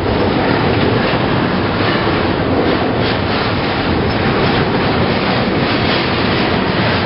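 Double-stack intermodal freight train rolling past close by: the steady rumble and wheel-on-rail noise of its container-laden well cars.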